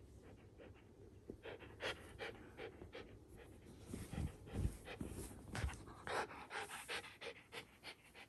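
Shiba Inu panting hard with its mouth open, about three breaths a second, winded after a long play-fight. A few dull thumps come around the middle.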